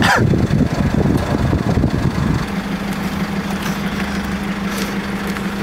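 Van engine running: a louder low rumble at first, then, about two and a half seconds in, a steady idle hum with one constant low tone.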